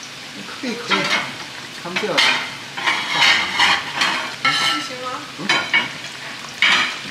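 Aubergine pieces deep-frying in hot oil in a wok: a steady sizzle broken by loud spitting bursts about every second.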